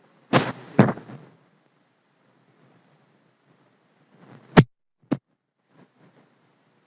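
Sharp knocks and clicks: two heavier knocks about half a second apart near the start, two sharp clicks about a second and a half from the end of the middle stretch, then a few faint ticks.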